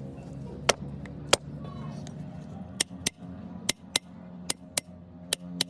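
Sharp clicks or taps, coming in pairs about a quarter second apart and repeating about twice a second, over a steady low hum.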